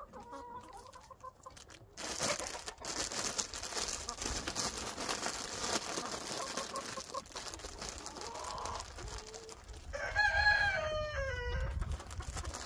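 Backyard chickens clucking over a scattered rustling, then a rooster crows once about ten seconds in. The crow is the loudest sound, a single call that holds its pitch and then falls away at the end.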